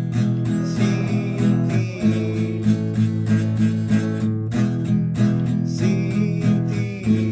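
Instrumental music led by strummed acoustic guitar, with steady sustained chords and a regular beat.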